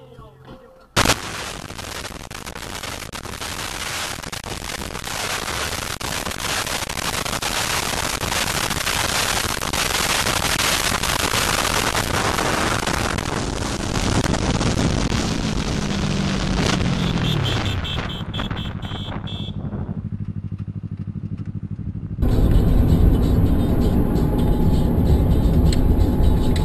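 A moving road vehicle heard from on board, a steady rush of road, wind and engine noise that opens with a sharp knock and grows slowly, with a falling engine note partway through. Near the end it cuts abruptly to a louder, deeper vehicle rumble.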